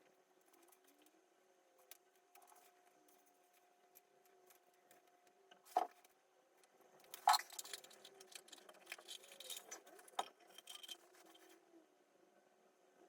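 Small hard parts being handled: a sharp clink about six seconds in, then a second clink and a run of light clinks and rattles lasting about four seconds.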